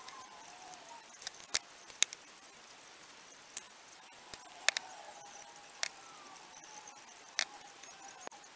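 Sharp, irregular clicks and taps of small metal parts and tools being handled while reassembling an SU carburettor, about a dozen spread over several seconds, over a faint hiss.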